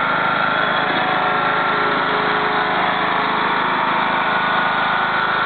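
Riding lawn mower's engine running steadily as the mower drives along.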